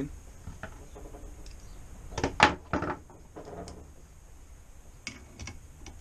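A few sharp clicks and knocks of small metal parts and tools being handled on a wooden workbench as the fork's lower-leg bolts are fetched to be refitted, loudest in a quick cluster about two to three seconds in.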